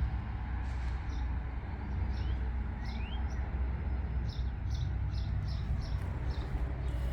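Small birds chirping: short high chirps repeated many times, with a few rising whistled notes, over a steady low rumble.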